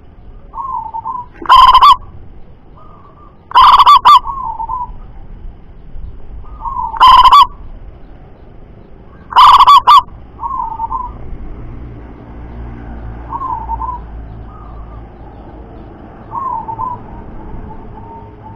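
Zebra dove (perkutut) cooing: four very loud calls in the first ten seconds, so loud they distort, with softer rolling coos between them and on to the end.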